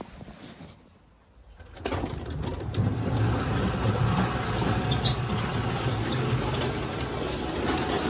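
Electric garage door opener running as a sectional garage door rolls up: a steady motor hum with rattle that starts about two seconds in.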